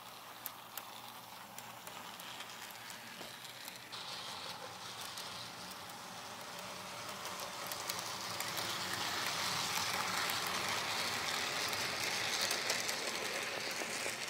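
Electric model train running on its track: a steady whirring rattle of the locomotive and its wheels on the rails, with a couple of sharp clicks in the first second, growing louder over the second half as the train passes close.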